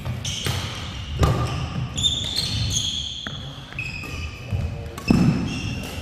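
Badminton doubles play on an indoor court: sharp racket hits on the shuttlecock and footfalls, with short high squeaks of court shoes on the floor. The loudest is a heavy thud about five seconds in.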